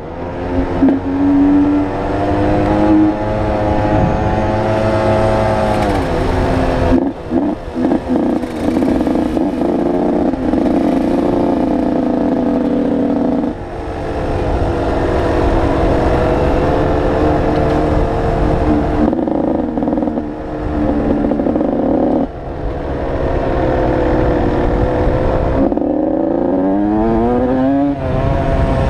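Dirt bike engine running under way, its pitch holding steady for stretches and then dropping or climbing several times as it is shifted and revved, with a quick rising rev near the end. A low rushing noise runs underneath.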